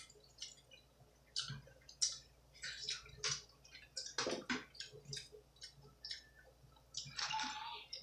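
Close-miked mouth chewing pizza: irregular smacking and clicking mouth sounds, with a fuller, lower sound about four seconds in and a longer noisy smack near the end.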